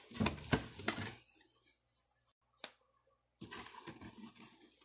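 Cardboard box being handled and opened: a few knocks and rustles in the first second, one sharp click, then cardboard rustling and scraping near the end as the lid comes up.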